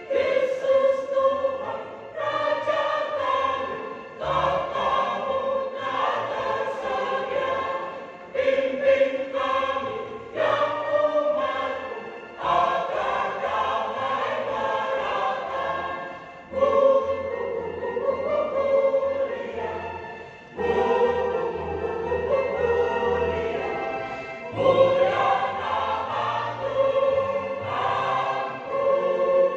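Church choir singing in parts, in phrases a few seconds long with short breaks between them.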